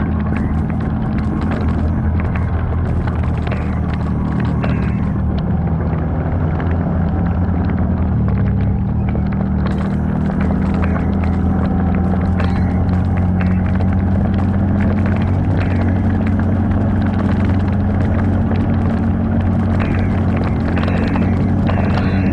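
Off-road vehicle engine running steadily at low trail speed, its pitch shifting only slightly, with scattered knocks and rattles from the vehicle working over rough ground.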